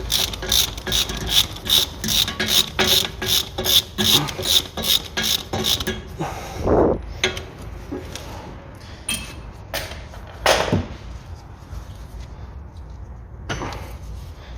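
Hand ratchet clicking rapidly, about three or four strokes a second, as the M8 bolts of a driveshaft's inner joint are tightened to the gearbox flange. The ratcheting stops about six seconds in, and a few separate knocks follow.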